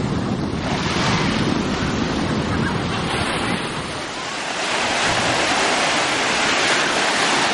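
Small sea waves breaking and washing up a sandy beach, the surf hiss swelling and easing every second or two. Wind buffets the microphone with a low rumble through the first half.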